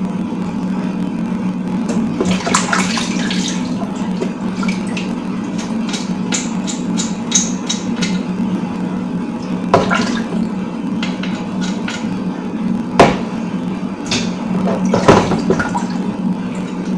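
Water splashing and running in a kitchen, with sharp knocks and clinks of pots or utensils, the loudest about 13 s in, over a steady low hum.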